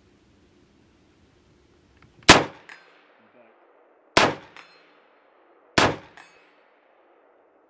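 Three single shots from a ZRODelta Zulu .223/5.56 AR-15-style rifle, fired one at a time about two seconds apart. Each loud crack is followed about a third of a second later by a fainter crack with a brief ring.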